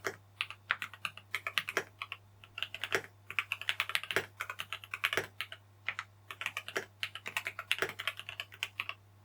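Typing on a mechanical keyboard fitted with lubed and filmed Lynx switches in a modded Glorious GMMK Pro: fast runs of keystrokes in bursts with short pauses between them. A faint steady low hum lies underneath.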